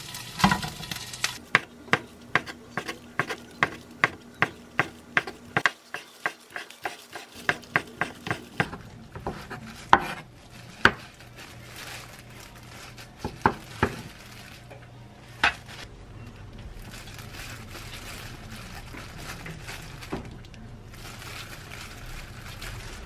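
A pan sizzling briefly at the start, then a kitchen knife chopping on a wooden cutting board at about three or four strokes a second for several seconds, likely slicing a thin egg omelette into strips. A few single knocks follow, then soft handling of the food.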